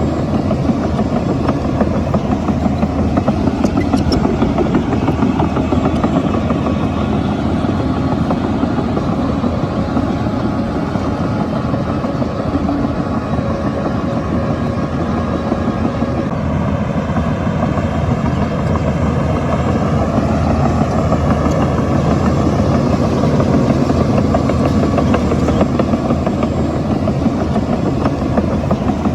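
Heavy diesel engine of a Shantui crawler bulldozer running steadily while it works the fill.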